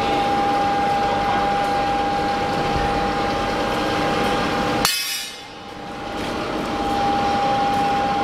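Steady industrial machinery noise with a constant high whine. About five seconds in it drops away abruptly, then builds back up over a couple of seconds.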